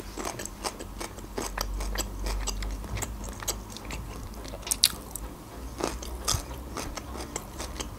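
Close-miked chewing and crunching of a pickled gherkin, with many irregular wet mouth clicks. A few louder clicks come about five and six seconds in.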